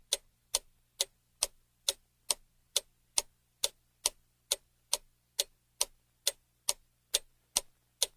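Ticking clock sound effect used as a guessing countdown: sharp, evenly spaced ticks, a little over two a second.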